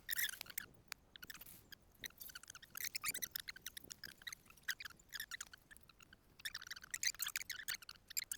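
Faint, irregular crunching and rustling: many short crackles close together, with brief pauses about a second in, around two seconds in and around six seconds in.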